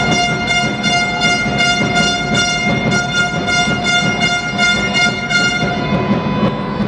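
A supporter's horn held on one long steady note, pulsing about three times a second, over general hall noise; the note stops about five and a half seconds in.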